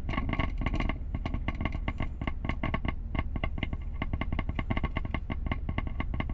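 Single-voice-coil 10-inch subwoofer crackling with a rapid string of scratchy clicks as 9-volt battery leads are held on its terminals in a pop test; the scratch is the cone reacting to straight DC power. A low steady hum runs underneath.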